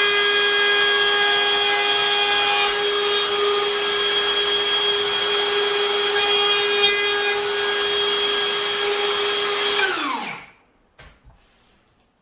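Hikoki cordless router running at full speed with a steady high whine while cutting a lock mortice in a door edge. About ten seconds in it is switched off and winds down, its pitch falling until it stops, followed by a few faint clicks.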